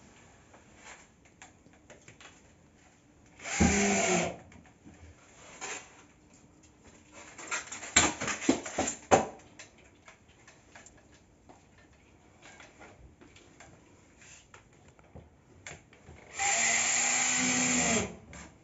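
Power drill-driver driving screws through plasterboard washers into ceiling joists to hold mineral wool insulation, twice: a short run about three and a half seconds in and a longer one of about a second and a half near the end, the motor's pitch bending as each run starts and stops. Scattered clicks and rustling between the two.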